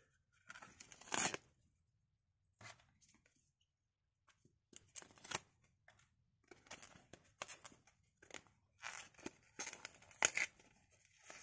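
Gelid thermal pad packet being pulled and torn open by hand: crackling and tearing of card and plastic, one sharp rip about a second in, a pause, then a run of crackles through the second half.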